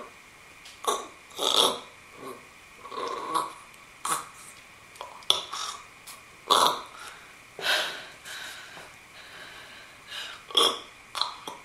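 Squeaking, burp-like throat noises as a rubber toilet plunger cup sealed over the nose and mouth is pumped, its vacuum forcing air through the throat. About a dozen short bursts at uneven intervals.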